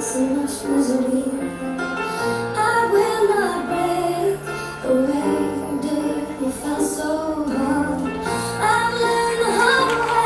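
Gaita music with a woman singing the lead over a band, bass notes changing every second or two under steady percussion.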